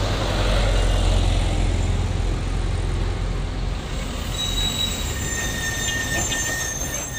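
Truck engines running with a heavy low rumble, then from about four seconds in a high-pitched squeal of several steady tones, typical of truck brakes squealing on a steep climb.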